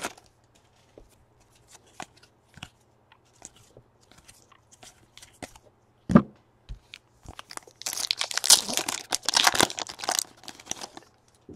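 Foil trading-card pack wrappers crinkling and tearing open by hand, with light scattered crackles, a single knock about six seconds in, and a long stretch of loud crinkling and tearing from about eight to eleven seconds.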